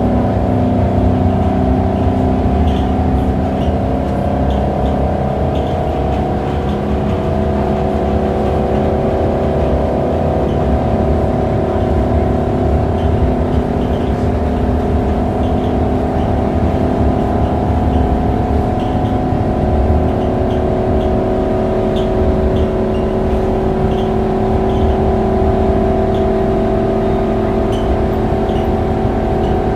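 Interior of a Scania K280UB city bus cruising, heard from the rear: the rear-mounted five-cylinder diesel runs with a steady engine note that rises and falls slightly, over a low road rumble.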